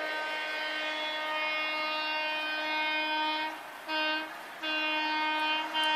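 Horn of an approaching Odakyu VSE Romancecar train sounding at one steady pitch: a long blast, a short one about four seconds in, then another long one.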